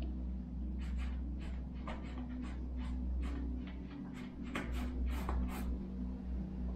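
Paintbrush laying acrylic paint onto the painting: a quick, irregular series of short scrubbing strokes, about three a second, starting about a second in and stopping near the end, over a steady low hum.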